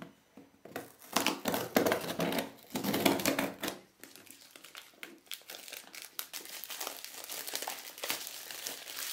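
Cardboard shipping box being slit and torn open, loud rustling and tearing of cardboard and packing tape for the first few seconds. Then the crinkling of clear plastic shrink-wrap being peeled off the retail box inside, softer crackles.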